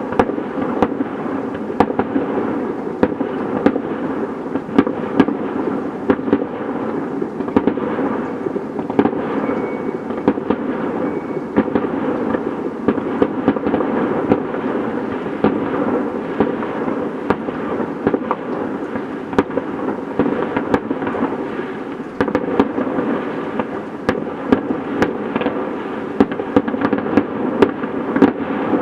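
Fireworks display: a dense, unbroken run of bangs and crackling, many shells bursting in quick succession without a pause.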